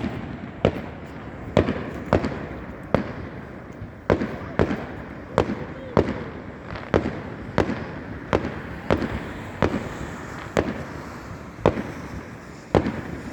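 Aerial fireworks shells bursting one after another at a distance, roughly two bangs a second, each trailing off in a short echo, over a continuous rumble.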